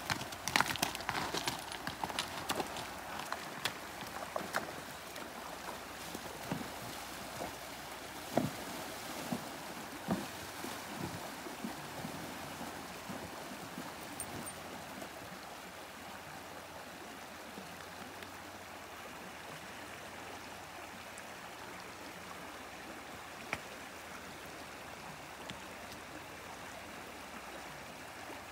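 Horse hooves splashing and knocking through a shallow, stony creek, the splashes frequent at first and thinning out after about ten seconds. Under them is the steady rush of the flowing creek water.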